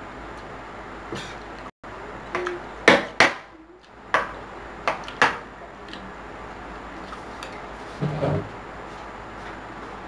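Metal cutlery clinking and scraping against a plate during eating, a series of sharp clinks with the loudest about three seconds in. A duller clatter comes about eight seconds in as the plate is picked up.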